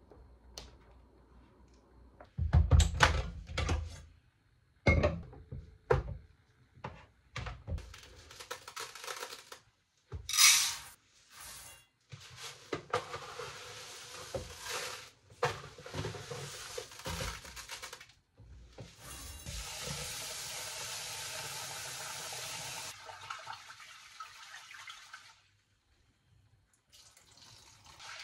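Kitchen work at a sink: a few thumps and clicks, then uncooked rice poured from a plastic container into a rice cooker's inner pot with a rattling hiss. A tap then runs steadily into the pot for several seconds, and near the end the rice is swished and washed by hand in the water.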